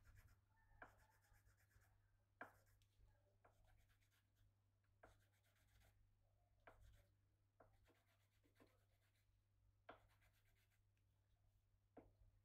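Faint hand work on a bamboo hulusi part: light scraping and rubbing, with a sharp little click about once a second, over a steady low electrical hum.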